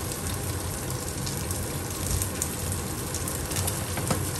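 Pan-frying sizzle from sea bass fillets in oil and spinach wilting in a second pan: a steady crackle with scattered small pops.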